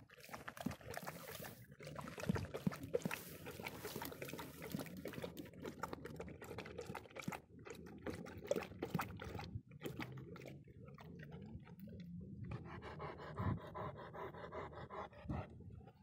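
Dog lapping water from a rainwater puddle: a rapid run of wet laps and splashes, broken by a few short pauses.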